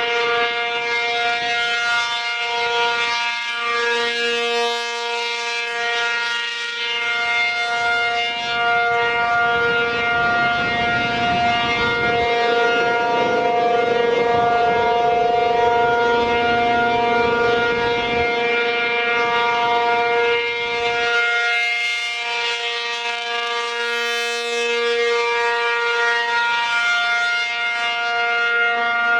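American Signal T-135AC rotating electromechanical outdoor warning siren sounding at full speed: a loud, steady multi-tone wail that holds its pitch, swelling and fading slowly as the rotating horn turns.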